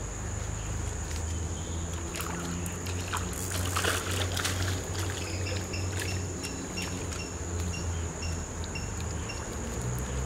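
Water splashing as tilapia caught on a spring net thrash at the surface and are pulled out, busiest a few seconds in. A steady insect trill runs underneath.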